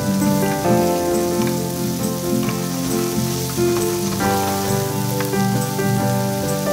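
Mushrooms sizzling in oil in a frying pan as they are stirred with a wooden spatula. Steady background music plays over the frying.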